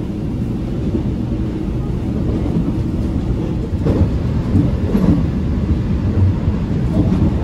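Cabin rumble of a Korail 311000-series electric commuter train running at speed, heard from inside the passenger car: a loud, steady low rumble of wheels on rail, a little louder from about four seconds in, with a couple of faint clicks.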